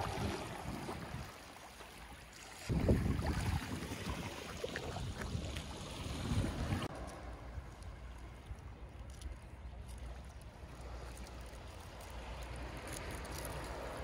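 Wind rumbling and buffeting on the microphone, with gusts about three and six seconds in, over small sea waves lapping against a concrete seawall.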